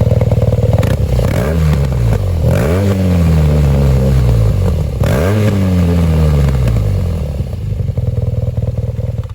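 BMW R nineT Pure's boxer twin on its stock exhaust, idling and blipped up several times, each rev rising quickly and settling slowly back to idle.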